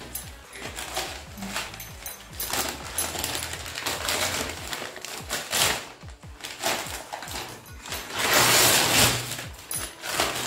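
Newspaper gift wrapping crinkling and tearing as a present is unwrapped by hand, in repeated rustling bursts, with the loudest, longest rustle from about eight to nine and a half seconds in.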